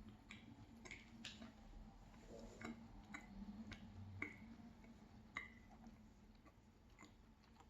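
Faint, scattered mouth clicks from chewing a cheese pancake, about eight soft sticky clicks over otherwise near silence.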